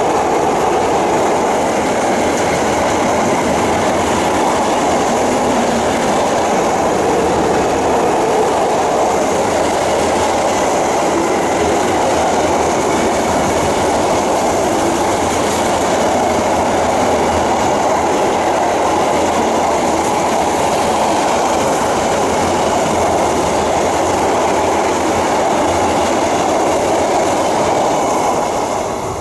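A freight train of empty double-deck car-carrier wagons rolls past at speed: a loud, steady noise of wheels on rail, which falls away near the end as the last wagon goes by.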